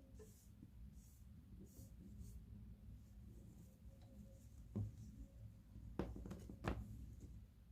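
Faint handling noises of material being worked by hand: soft rustling, then a few light knocks in the last few seconds.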